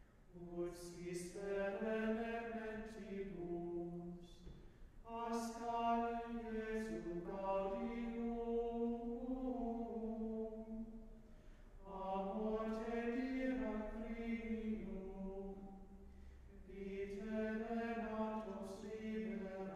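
Small choir of men singing plainchant in unison: four long sung phrases, each separated by a short pause for breath.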